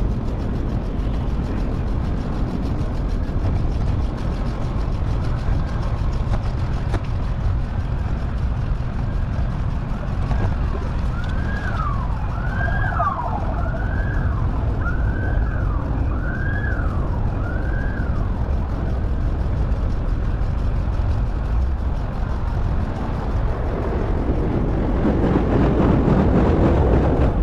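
Steady wind rush on the microphone of a moving bicycle, with an emergency-vehicle siren wailing through it in about six rising-and-falling sweeps, roughly one a second, in the middle. A louder rush of noise swells near the end.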